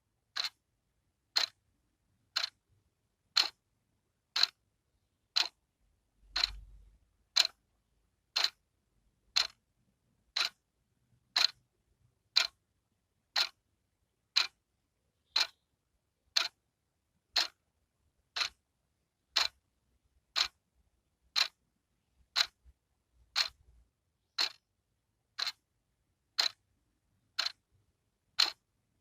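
Wall clock's second hand ticking, one sharp, even tick every second.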